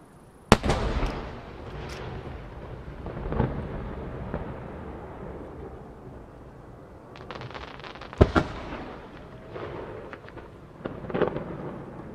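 Large Japanese aerial firework shells bursting. A sharp, loud bang comes about half a second in, followed by a long rumbling tail and smaller booms. Crackling and another sharp bang come about eight seconds in, and a further burst comes near the end.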